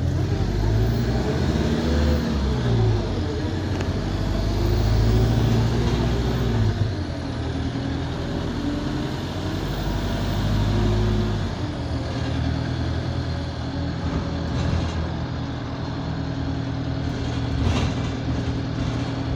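Alexander Dennis Enviro200 bus's diesel engine pulling hard from inside the saloon for about ten seconds, then easing off. A faint high whine rises and falls with it, from a turbo that the uploader says is burst.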